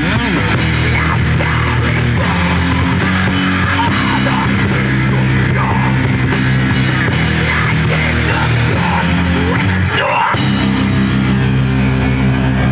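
Heavy metal band playing loud live: guitars, bass and drums, with a brief break in the low end about ten seconds in before the band comes back in.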